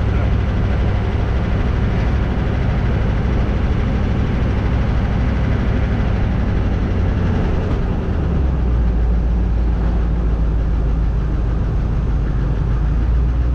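HMMWV (Humvee) V8 diesel engine and drivetrain running under way, heard loud from inside the cab, with road noise. The low drone is steady, and deepens and strengthens about eight seconds in.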